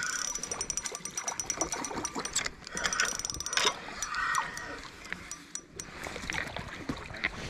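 Spinning reel being cranked, a fast, even run of small mechanical clicks that thins out to scattered clicks about halfway through.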